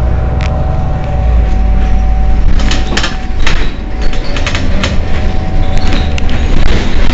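Heuliez GX 327 city bus idling while stationary: a low, steady engine rumble with a constant high hum over it. A run of sharp clicks and knocks comes about halfway through.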